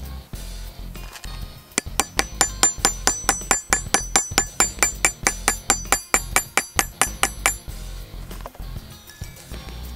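Ball-peen hammer tapping rapidly on a steel tool against a steel block, setting a rivet in a leather strap: about five light, ringing metallic strikes a second for some six seconds, starting about two seconds in. Background music plays underneath.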